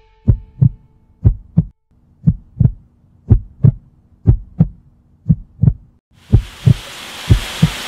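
Heartbeat sound effect: a double lub-dub thump about once a second, deep and steady. A faint hum sits under it, and a hiss swells in and keeps rising from about six seconds in.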